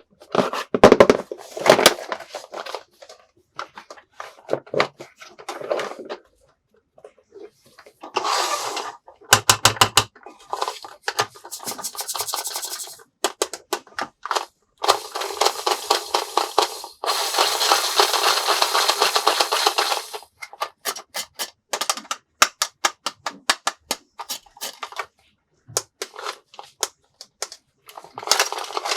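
Plastic toy pieces clicking and clattering as they are handled, with a few longer stretches of rapid rattling, the longest about halfway through.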